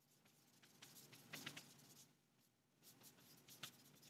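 Faint scratching of chalk writing words on a chalkboard, in two short spells of quick strokes with a brief pause between them.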